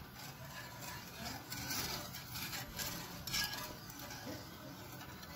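Wire whisk stirring milk pudding in a non-stick frying pan, its wires making light, irregular clinks and scrapes against the pan. The pudding is kept moving so it does not catch on the bottom before it boils.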